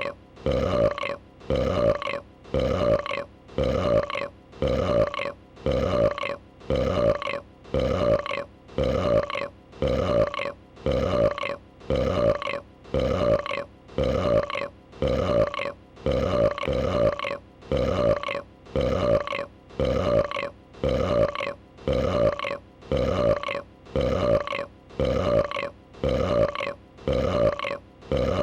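A female dragon's burp sound effect, looped: the same short, pitched burp repeats about once a second.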